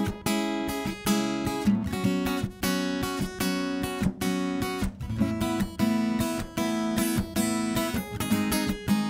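Acoustic guitar strummed in a steady rhythm, the instrumental intro of a sertanejo song; the chords change about five seconds in.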